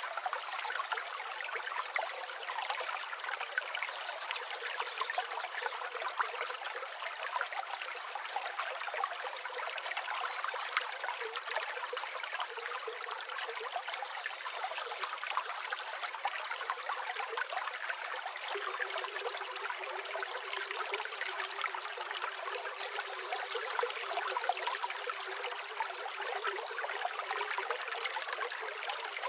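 A river or stream flowing and babbling steadily, a continuous rushing of water with no deep rumble.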